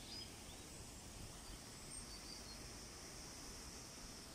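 Faint outdoor park ambience: a low, steady background rumble with a few short, high bird chirps scattered through it.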